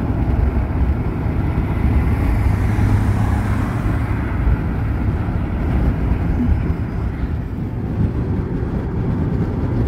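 Steady road and wind noise inside a car cruising at highway speed: a continuous low rumble of tyres and engine with a hiss of air over it.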